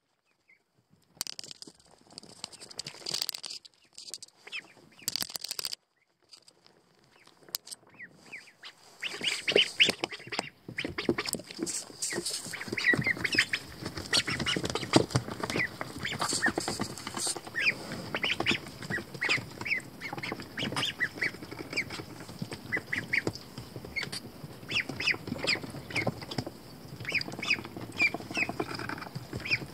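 A brood of Pekin ducklings peeping, many short high calls overlapping. For the first several seconds there are only scattered short noises with silent gaps; from about nine seconds in the peeping is continuous.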